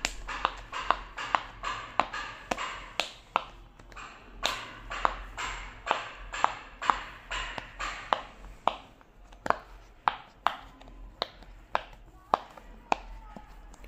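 Silicone pop-it bubbles on a diary cover pressed in by a thumb one after another: a run of sharp pops, about two a second, each with a brief ringing tail.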